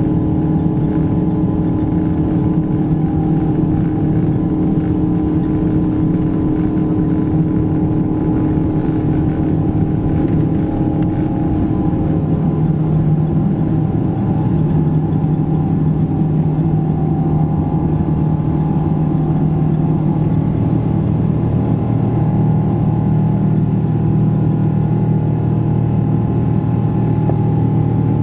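Boeing 777-200ER's General Electric GE90 engines at takeoff thrust, heard from inside the cabin through the takeoff roll and lift-off: a loud, steady engine drone. Its main low tone drops in pitch about twelve seconds in, and a deeper rumble comes in near the end.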